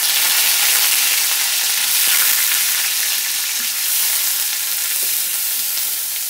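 Ginger paste frying in hot mustard oil with the tempering spices, stirred with a wooden spatula: a loud, steady sizzle that eases slightly toward the end.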